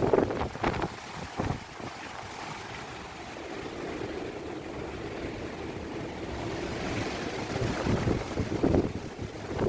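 Strong wind of about 68 km/h buffeting the microphone in gusts. It is loud in the first second, eases in the middle and builds again near the end.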